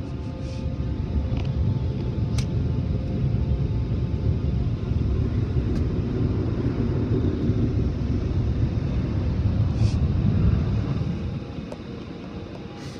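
Automatic car wash machinery running, heard from inside the car: a loud, steady low rumble of water spray and equipment, with a few sharp ticks, that drops away about eleven seconds in.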